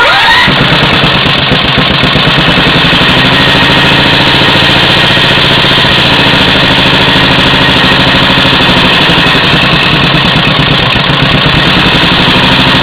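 12.5 hp Briggs & Stratton single-cylinder riding-mower engine, breathing through a Yamaha Moto 4 carburetor and a John Deere 111 muffler. It catches and revs up quickly at the start, then runs loud and steady with the choke pulled, above its normal idle of about 500 rpm.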